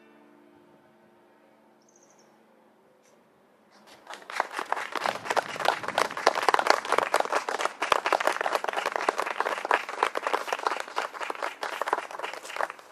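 The last notes of a harp dying away, then about four seconds in an audience starts applauding. The clapping goes on for roughly nine seconds and stops just before the end.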